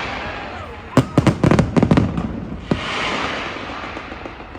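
Fireworks bursting. A fading crackling hiss gives way, about a second in, to a quick cluster of sharp bangs; then another bang is followed by a long crackling hiss that slowly dies away.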